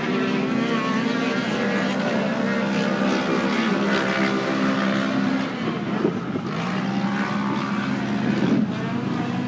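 Camera drone's propellers humming steadily, with a slight shift in pitch about six seconds in; fainter race engines sound beneath it.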